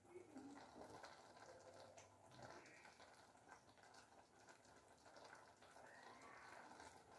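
Near silence, with faint ticking and sizzling from a pan of spaghetti cooking over a gas flame.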